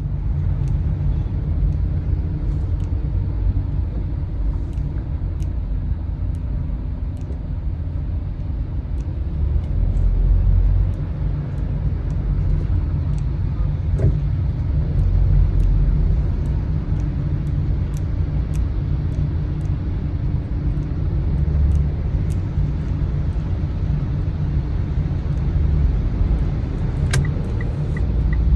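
A car driving, heard from inside the cabin: a loud, steady, low road and engine rumble. Near the end a rapid, even ticking starts.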